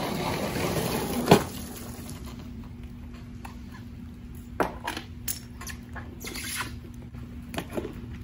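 Segway Ninebot GoKart Pro electric go-kart on wet pavement. A hiss of tyres on water fades out, and there is a sharp knock about a second in. Then a low steady hum and a few scattered clicks follow as the kart rolls slowly back and stops.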